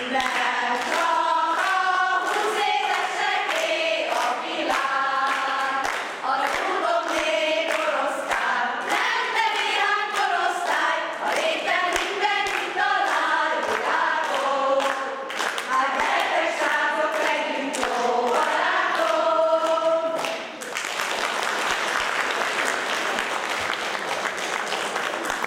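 A choir of women singing together for about twenty seconds, then audience applause to the end.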